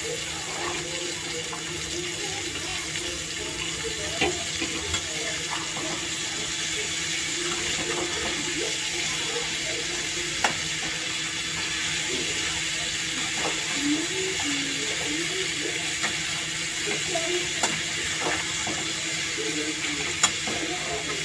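Cauliflower, potatoes and peas frying in hot oil in a karahi: a steady sizzle, with a metal spatula stirring the vegetables and knocking sharply against the pan a few times.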